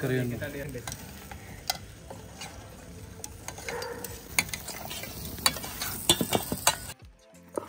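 Chicken sizzling as it cooks: a steady hiss with frequent sharp crackling pops. It cuts off abruptly near the end.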